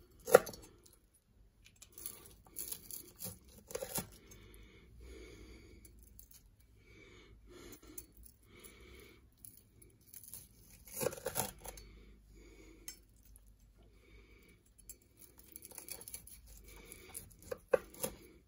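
Large kitchen knife cutting through a panko-crusted fried chicken breast, the crust crunching and scraping under the blade. Several sharp knocks come through as the blade strikes the worktop, the loudest just after the start.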